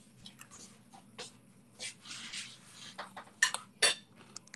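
Scattered small clinks and knocks of dishes and cutlery being handled, with a short rustle about two seconds in and two loud sharp knocks about three and a half seconds in.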